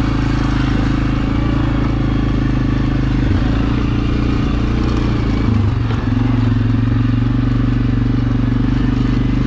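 Single-cylinder ATV engine running steadily under load on a rocky trail, its note dipping briefly about six seconds in.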